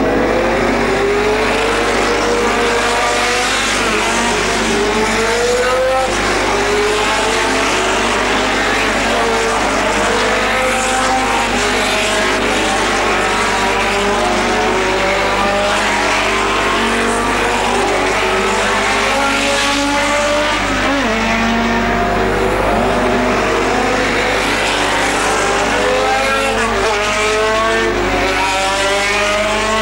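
A field of historic sports racing cars passing at speed, several engines overlapping and rising in pitch again and again as they accelerate through the gears.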